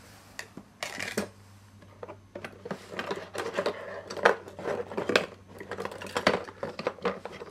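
Small hard objects clinking and clattering as someone rummages by hand through a box of junk-drawer odds and ends. There are a few knocks in the first two seconds, then a busy run of clicks and rattles.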